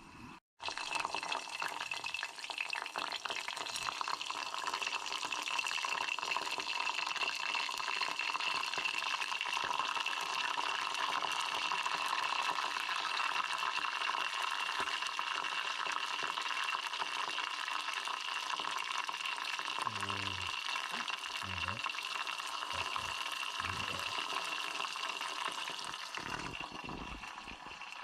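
Hornet larvae deep-frying in hot oil: a steady sizzle that starts about half a second in and eases off slightly near the end.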